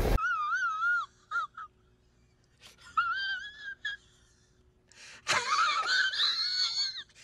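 A man crying in a high, wavering falsetto wail, in several sobbing bursts with breathy gasps between, the longest and loudest in the last two seconds.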